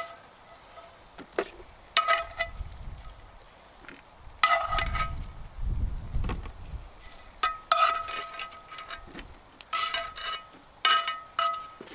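Metal tongs clinking and scraping against a cast-iron skillet as fried potatoes are lifted out, about half a dozen ringing clinks a second or two apart, with a low rumble around the middle.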